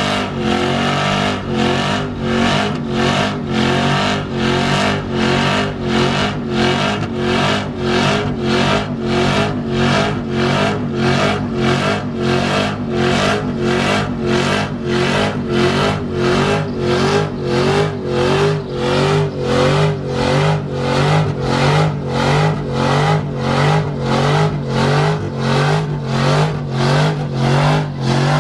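A Chevrolet Silverado pickup doing a burnout: the engine is held at steady high revs while the rear tyres spin and smoke. The sound pulses in a quick, even rhythm.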